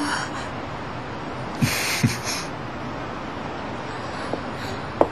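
A steady hiss of background ambience. About two seconds in there is a short breathy rush, like a sigh or gust, and a few soft clicks come near the end.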